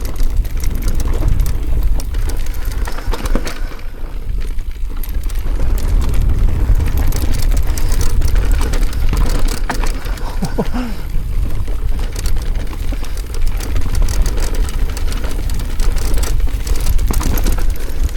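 E-mountain bike ridden over a rough trail: a steady wind rumble on the microphone mixed with the rattle and clicks of tyres and bike over stones.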